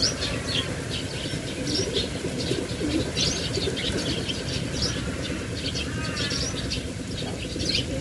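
Small birds chirping in short, repeated high calls over a steady low background hum.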